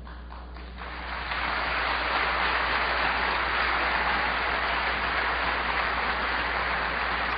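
Large audience applauding: the clapping starts about a second in, swells quickly and then holds steady.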